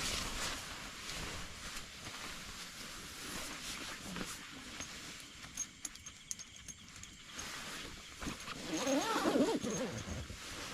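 A wavering animal call about nine seconds in, over a steady noisy background.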